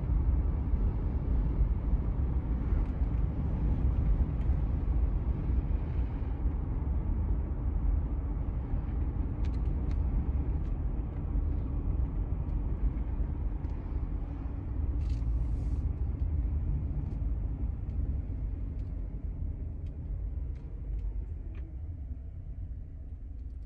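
Car cabin noise while driving: a steady low rumble of road and engine that slowly eases off over the last several seconds, with a few faint ticks and a brief hiss about fifteen seconds in.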